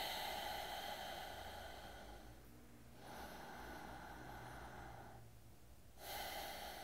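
A man breathing deeply while holding a wide-legged forward fold stretch: three long breaths, each about two seconds, the first the loudest and the third starting near the end.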